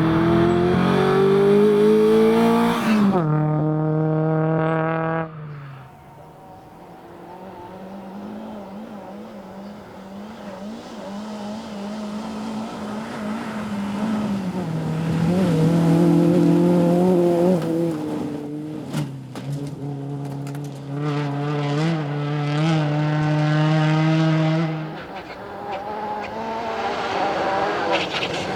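Rally car engines on a gravel stage at full throttle. One revs hard and climbs through a gear change about three seconds in, then drops away. Another holds steady high revs with a few sharp cracks, then falls off, and a third revs up near the end.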